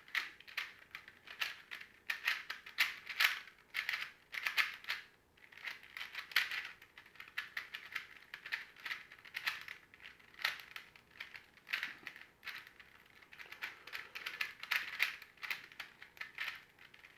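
Plastic twisty puzzle cube being turned quickly by hand: rapid clicking and clacking of its layers, in short runs with brief pauses.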